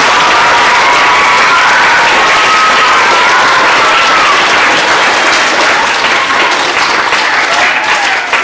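A large audience of schoolchildren and adults clapping together, easing off near the end.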